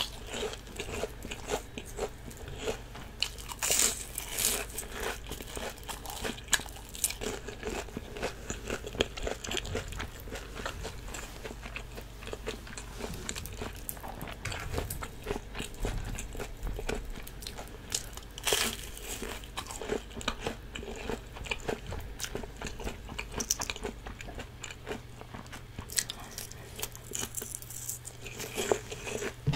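Close-miked eating of deep-fried shrimp (saeu twigim): crisp batter crunching under the bite, then chewing, with a few louder crunches scattered through.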